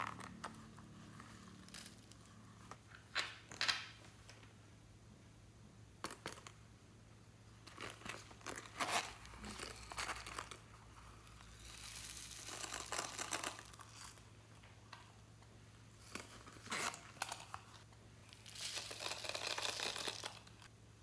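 Small zippered silicone pouches being unzipped and handled, their contents tipped out into a glass bowl: a string of short zipping, rustling and crinkling sounds with pauses between, the longest about twelve seconds in and just before the end.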